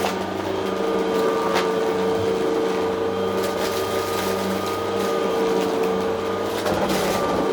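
Vacuum cleaner motor running steadily with a constant whine, with a few brief crackles as crunchy debris is sucked up.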